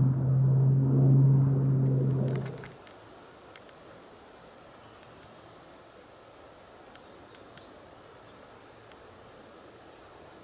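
A loud, steady low hum with rushing noise for the first few seconds, which stops about three seconds in. Faint outdoor ambience follows, with soft high chirps now and then.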